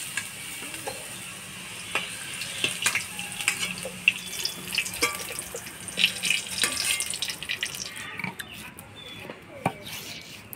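Hot oil sizzling in a large metal wok while a steel ladle scrapes and clinks against it, lifting out fried potato cubes. The sizzle stops about eight seconds in, leaving a few scattered clicks and scrapes.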